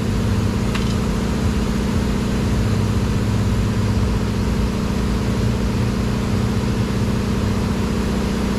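Steady low mechanical hum, like an engine or machine idling, unchanging throughout, with one faint click about a second in.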